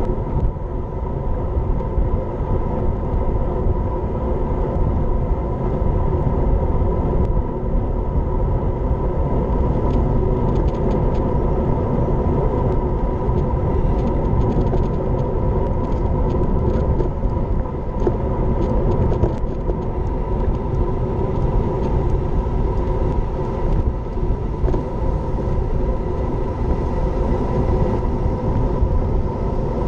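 Steady wind rumble on a bike-mounted action camera's microphone as a road bike rides at speed, with a faint steady whine running through it.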